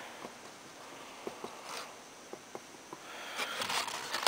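Faint handling noise from working on a foam RC airplane: scattered light ticks, a louder rustle starting about three seconds in, and a sharp click at the very end.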